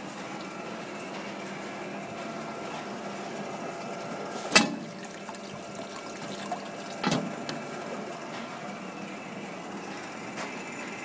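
Water running and splashing into the stainless steel tray of a filling machine over the machine's steady motor hum, with two sharp knocks about four and a half and seven seconds in.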